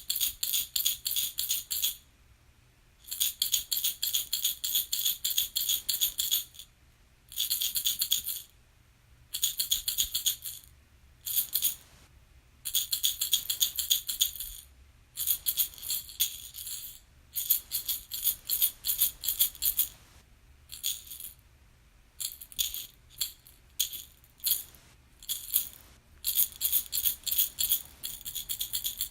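Baby rattle shaken in quick bouts of one to three seconds, with short pauses in between: a fast, bright rattling of small beads inside a toy.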